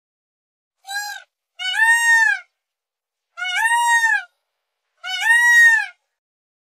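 Male Indian peafowl (peacock) giving its loud wailing call four times: a short first call about a second in, then three longer calls, each rising and falling in pitch.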